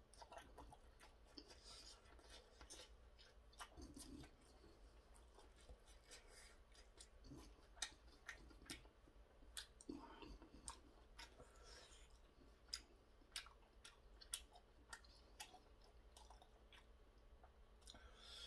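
Faint chewing of a mouthful of dumpling, with scattered small clicks and taps of a metal fork against a styrofoam takeout container.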